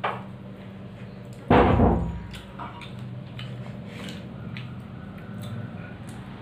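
Fingers working rice against a plate with small light clinks and scrapes, and one loud thump about a second and a half in. A steady low hum runs underneath.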